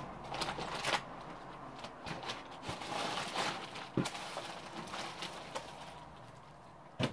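Rustling and handling noises as herbs and small containers are handled, with scattered light clicks and knocks and a louder knock near the end.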